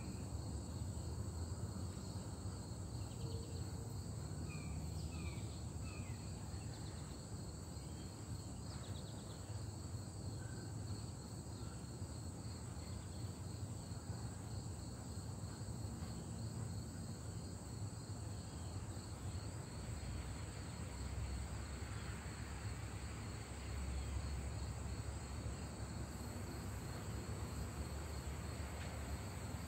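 Steady insect chorus: a continuous high pulsing trill with a second, higher band above it, over a low rumble. A few short bird chirps sound in the first several seconds.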